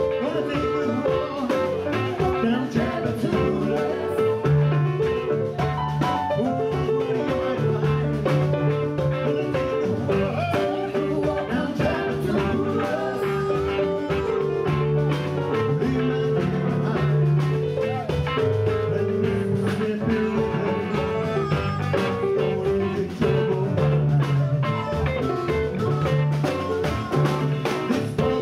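Live blues band playing: electric guitars, bass, keyboard and drum kit, with singing over a steady beat.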